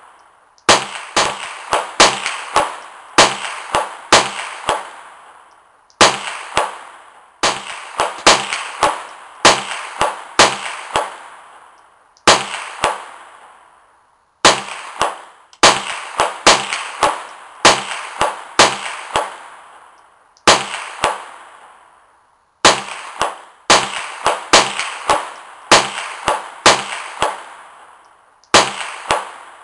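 .22 rifle fired in rapid strings of shots, several a second, each string trailing off in an echoing decay before the next begins.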